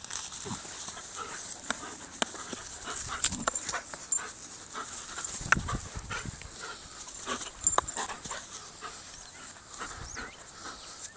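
German Shepherd panting, with scattered clicks and knocks throughout.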